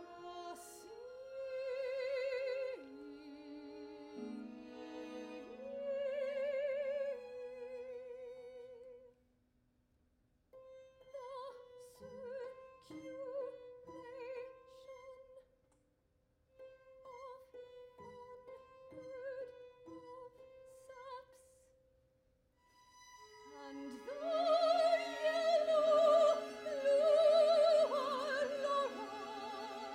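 Operatic soprano singing with wide vibrato over a chamber string orchestra and harp, in contemporary classical art song. After a sustained opening phrase the music thins to short separated notes broken by brief silences, then swells to a fuller, louder passage with voice and strings together near the end.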